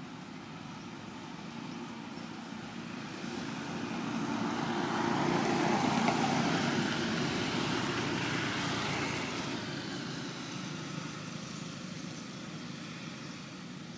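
Engine and road noise of a passing vehicle, growing louder to its peak about six seconds in and then fading away.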